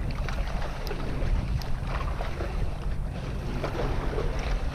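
Wind buffeting the microphone as a steady low rumble, with a few faint clicks over it.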